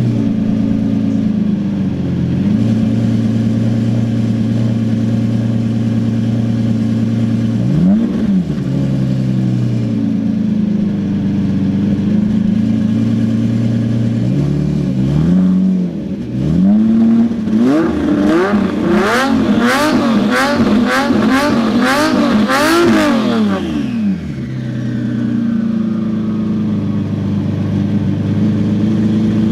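Twin-turbo Lamborghini Murciélago V12 idling, blipped once about eight seconds in and again about fifteen seconds in. It is then revved hard in a quick run of about seven blips with sharp pops between them, and settles back to idle with a falling whistle.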